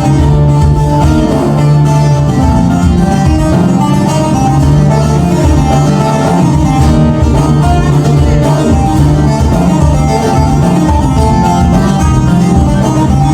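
Live band playing an instrumental break between sung verses of a Turkish folk song.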